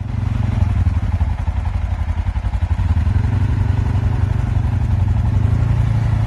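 ATV engine running steadily as the quad pulls away across mud and slush.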